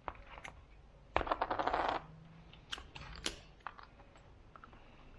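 Small metal parts of a power steering pump clinking and tapping as they are handled, with a quick rattle of rapid clicks lasting under a second, a little after the first second.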